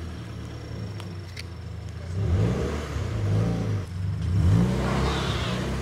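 Car engine running, then revving up twice, its pitch and loudness rising about two seconds in and again about four seconds in.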